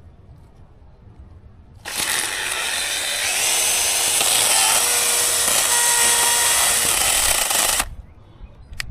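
Gas chainsaw opening up about two seconds in and running at high speed for about six seconds, then dropping off suddenly.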